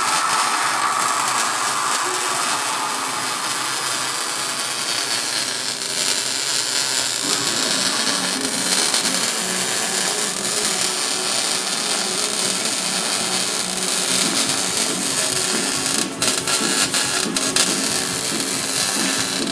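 Steady metalworking noise on a van's steel frame: a harsh, continuous hiss with a low hum joining about seven seconds in, broken by a few brief interruptions near the end.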